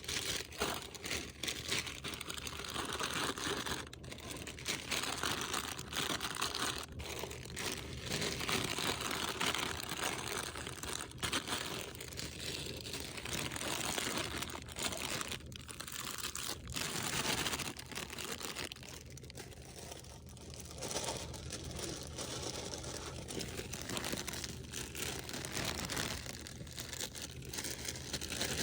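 Snack packets and their boxes handled by hand, plastic wrappers crinkling and rustling with scattered irregular knocks, as the snacks are unpacked and loaded into a vending machine.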